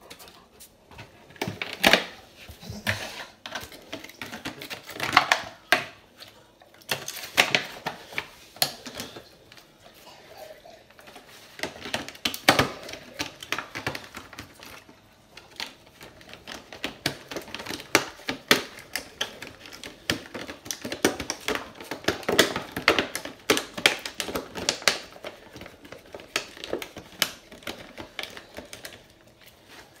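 Hotpoint WMFUG 942 washing machine drum tumbling a wet load. Irregular clicks and knocks are mixed with swells of swishing water.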